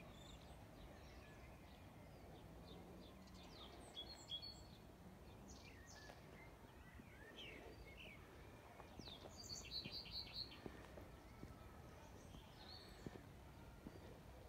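Songbirds chirping and calling at a low level, with a quick run of about five short high notes about ten seconds in.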